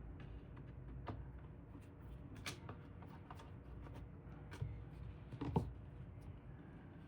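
Faint handling noises: scattered light clicks and taps, the loudest about five and a half seconds in, over a low steady hum.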